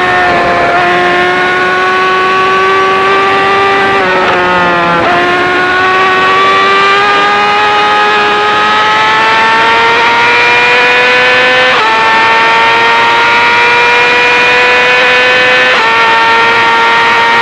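Yamaha R6 inline-four with an Akrapovic full exhaust system, running hard at high revs on track. Its note climbs slowly and steadily, dips briefly about four seconds in and climbs again, and changes abruptly twice, near twelve and sixteen seconds in.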